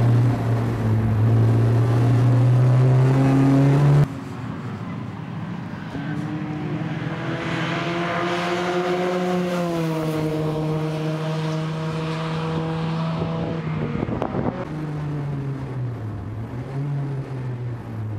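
Opel Kadett GSi race car's four-cylinder engine under hard load, heard from inside the cabin. About four seconds in, the sound cuts to the car passing at speed, its engine note rising and then dropping as it goes by, with a hiss of tyres on wet tarmac. About fourteen seconds in, it cuts back to the cabin, where the revs dip and climb again twice.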